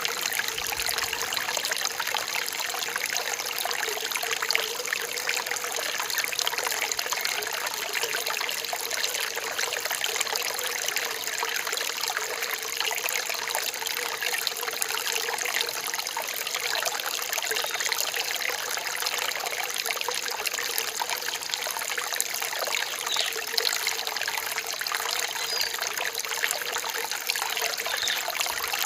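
Rain-forest stream trickling and splashing steadily.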